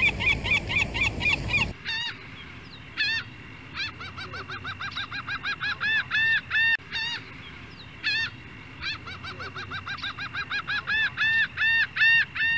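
Gulls calling in rapid series of repeated yelping notes. There is a change of recording about two seconds in, then runs of calls that come in bursts and quicken toward the end.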